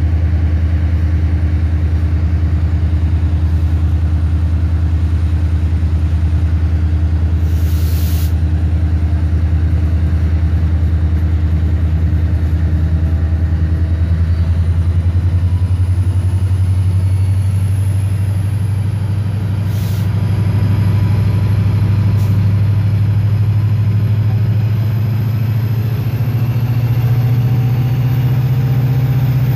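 EMD diesel-electric locomotive engine heard from inside the cab, running with a steady low drone whose pitch rises gradually through the second half. A brief sharp high noise cuts in about eight seconds in.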